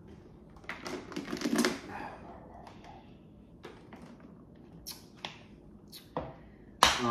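Drinking from a plastic shaker bottle: a cluster of gulps and sloshing clicks about a second in, then scattered light clicks and taps, and a sharp knock near the end.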